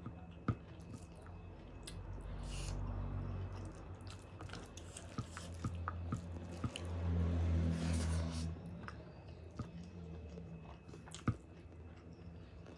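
Close-up chewing and mouth sounds of rice and egg curry being eaten by hand, with wet squishing as the fingers mix rice and curry on the plate. It is loudest about seven to eight seconds in, and a few sharp clicks stand out.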